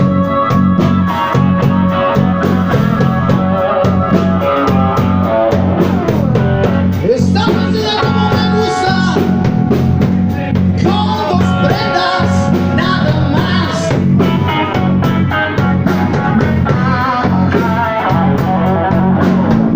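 A live blues band playing: guitar over bass and drum kit, with bending melodic lines from about a third of the way in.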